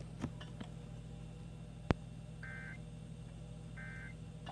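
Emergency Alert System end-of-message data tones: two short, buzzy digital bursts about a second apart, the closing SAME code of the alert, over a steady low hum. A sharp click, the loudest sound, comes just before the first burst.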